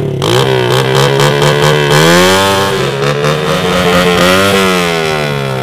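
Honda Monkey mini bike's single-cylinder engine being revved, its pitch climbing and falling in two slow swells, the first peaking about two seconds in and the second near four and a half seconds.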